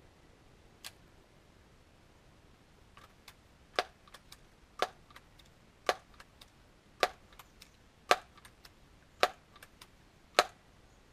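Daisy PowerLine 901 multi-pump pneumatic air rifle being pumped seven times, charging it with air for one shot. Each stroke of the forearm pump lever ends in a sharp clack, about one a second, with fainter clicks between.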